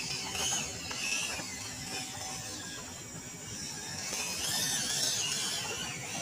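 WPL D12 RC pickup truck's electric motor and gearbox whining as it crawls over dirt, the whine rising and falling in pitch with the throttle.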